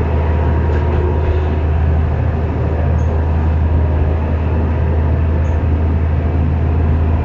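Steady running noise heard inside a Kanto Railway Ryugasaki Line diesel railcar under way: a constant low drone with wheel and rail noise over it.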